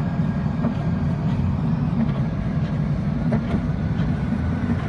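Steady low vehicle rumble with a few faint ticks.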